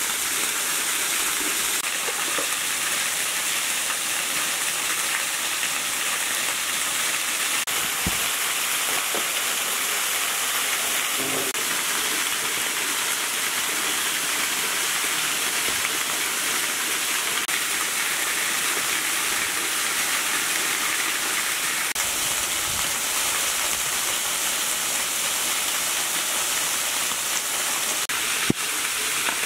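Steady rushing of a small waterfall into a pool, with a few faint knocks and, about a second before the end, one sharp chop of a cleaver on a wooden chopping board.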